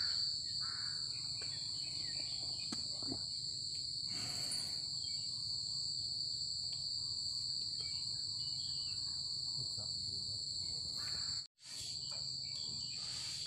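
A steady, high-pitched insect chorus, a continuous shrill drone at two pitches, with a brief noise about four seconds in. The sound drops out for an instant a little after eleven seconds in.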